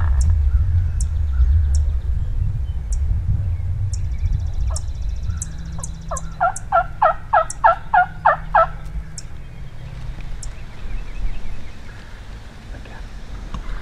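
A wild turkey calling: a quick run of about nine loud notes lasting a little over two seconds, midway through.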